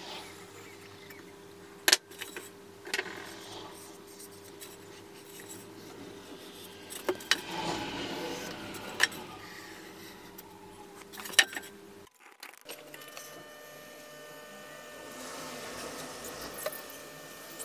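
A foam block being handled and marked on a wooden board: several sharp taps and knocks, and the scratch of a ballpoint pen drawing along the foam about seven to nine seconds in, over a steady hum that stops about twelve seconds in.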